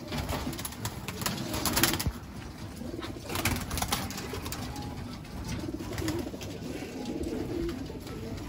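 Racing pigeons cooing in a loft, with a short flurry of wing flapping about three seconds in.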